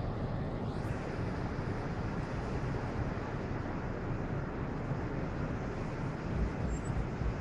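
Cruise ship Royal Princess manoeuvring off the quay, its bow thrusters churning the water: a steady low rumble, with a few deeper pulses near the end.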